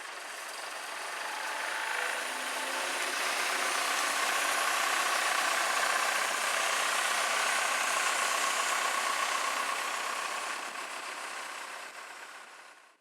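Compair Q375 portable diesel air compressor running, its Perkins diesel engine going steadily. It grows louder over the first few seconds, holds, then drops away near the end.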